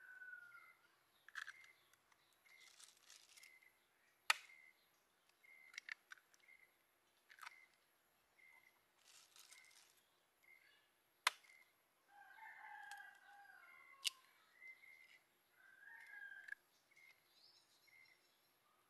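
A rooster crowing faintly in the distance, with small birds chirping over quiet rural background. A few sharp taps stand out, the loudest about four seconds in and about eleven seconds in, while eggs are being cracked into a coconut-shell bowl.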